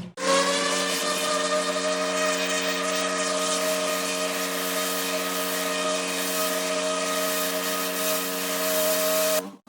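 Pressure washer running steadily: the machine's pitched hum under the hiss of its high-pressure water jet on brick paving. It cuts out abruptly just before the end and comes back at a slightly different pitch.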